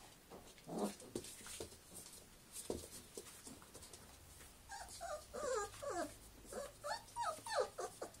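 Four-week-old Samoyed puppies whimpering: a rapid series of short, high, sliding squeaks that starts about five seconds in. Before that, only scattered soft rustles and knocks from the puppies moving about.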